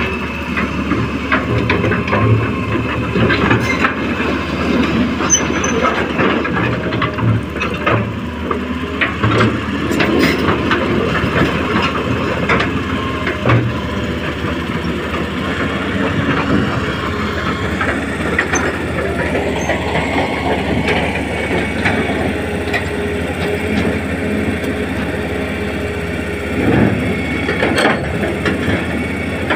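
Huina 1535 RC excavator's electric motors whirring under load, with many short clicks and knocks throughout as it digs. The motor pitch rises and then falls about twenty seconds in.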